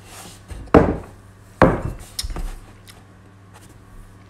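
A few sharp knocks and clatters on a hard surface: two loud ones about a second apart, then two lighter ones close together.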